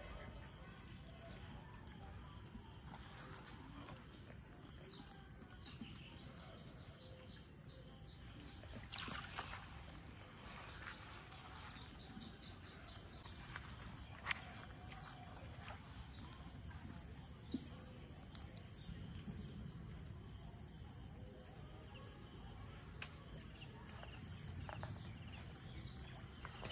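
Faint rural outdoor ambience: insects chirping in a steady high pulse, a couple of times a second, with occasional bird calls and a few soft knocks.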